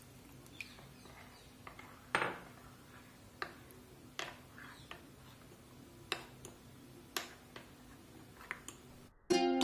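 Steel spoon stirring a thin flour-and-water batter in a glass bowl, clinking against the bowl's side every second or so. Ukulele-like music begins right at the end.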